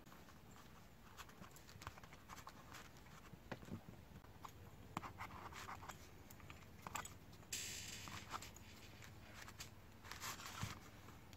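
Faint handling noises as wooden knife-handle scales are fitted to the tang and clamped with steel C-clamps: scattered small clicks and taps, with a short scraping hiss about two thirds of the way in and another near the end.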